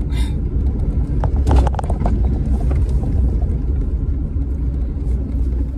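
Steady low rumble of a car on the move, heard from inside the cabin. A short cluster of clicks comes about a second and a half in.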